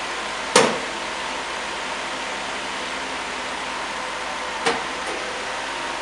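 Group shrink tunnel for bottles running, its blower and cooling fan making a steady whirring with a faint steady tone. Two sharp knocks cut through it: a loud one about half a second in and a smaller one about four and a half seconds in.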